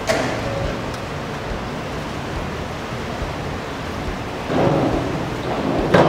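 Steady, echoing rushing noise of an indoor pool hall. It grows louder about four and a half seconds in, with a sharp knock near the end.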